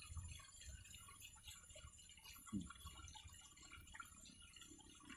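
Near silence: faint outdoor ambience with a light high-pitched speckle, broken by one short, faint pitched sound about two and a half seconds in.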